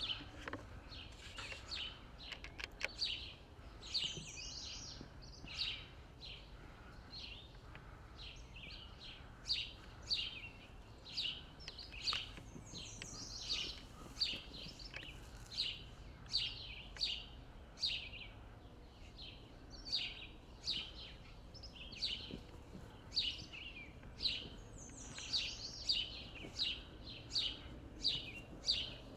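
A bird chirping over and over in short, sharp calls, about one or two a second, some sliding down in pitch. A few faint clicks sound in the first few seconds.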